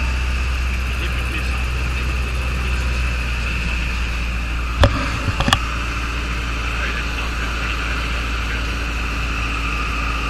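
Steady drone of a light aircraft's piston engine and propeller heard from inside the cockpit, with two sharp clicks about five seconds in.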